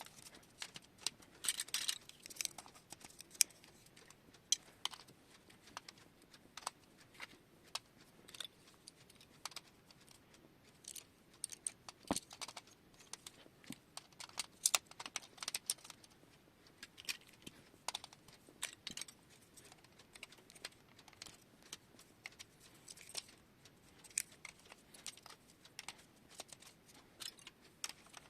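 Plastic marble run toy clicking and clattering: irregular light clicks and taps, a few louder ones, with no steady rolling sound.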